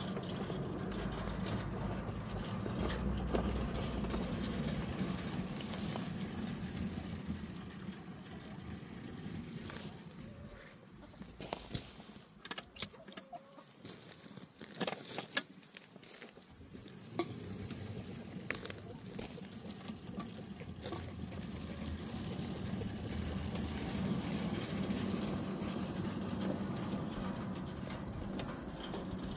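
7¼-inch gauge miniature train running along the track, its locomotive's motor running steadily as it moves off and away, then coming back about seventeen seconds in. In the quieter stretch between, a few sharp clicks and knocks.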